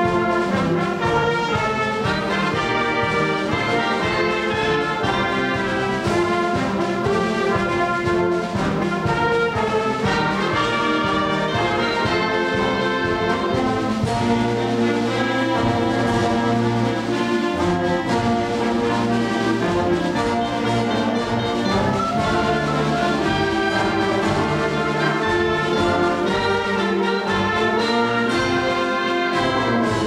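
Concert band playing a march, with clarinets, flutes and saxophones over tubas and euphoniums, plus marimba and percussion.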